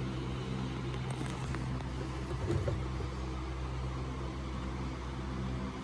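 Steady low mechanical hum with a faint, brief rustle about two and a half seconds in.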